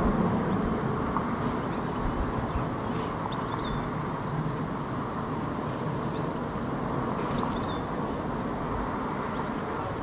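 Steady low rumble of distant traffic, easing slightly after the start, with a few faint short high chirps from a small bird.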